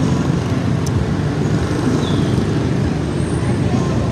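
Steady, dense city street traffic: a continuous low rumble of many vehicle engines and tyres.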